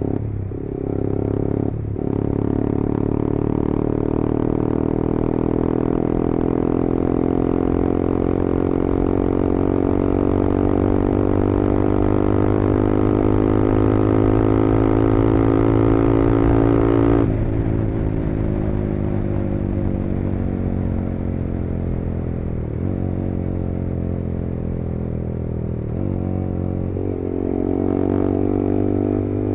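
Yamaha R15M's single-cylinder engine through an SC Project full-system exhaust, ridden on the road. After quick shifts in the first two seconds, the note rises steadily in one long pull. About 17 seconds in the throttle is shut, and the note falls away with a few brief dips before picking up again near the end.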